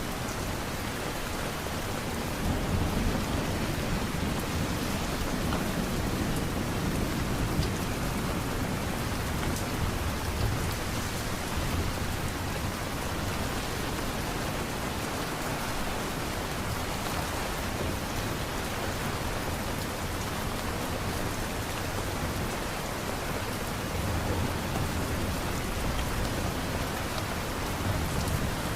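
Steady rain falling, with a low rumble that swells and fades several times.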